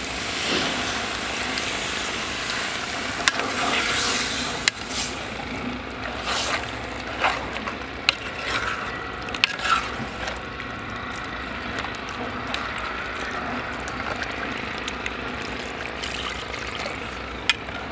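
Water poured into a metal pot of masala-coated beef bones, then a metal ladle stirring the meat. Several sharp clinks of the ladle against the pot come through the middle of the stretch and once more near the end.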